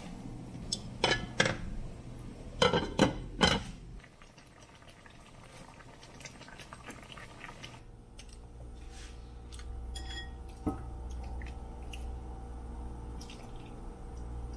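Handfuls of raw napa cabbage pressed down into a pot of hot water, with crisp crackling and several sharp knocks in the first four seconds. After that, a quieter stretch of liquid sloshing in the pot with a single clink about ten and a half seconds in.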